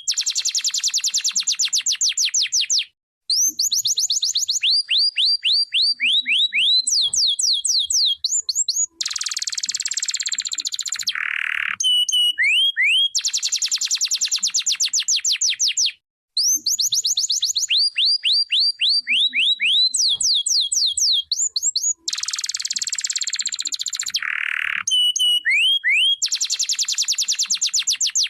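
Canary singing: rapid trills of repeated notes, runs of sweeping whistled notes and harsher rolling passages, in phrases that recur with brief pauses.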